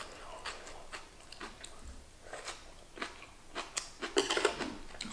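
A person chewing crunchy vegetables close to the microphone: a run of irregular small crunches and wet clicks.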